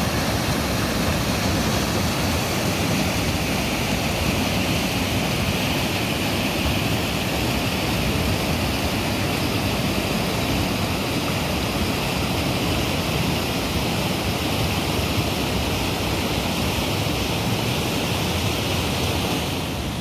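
Franklin Falls waterfall pouring, a loud, steady rush of falling water.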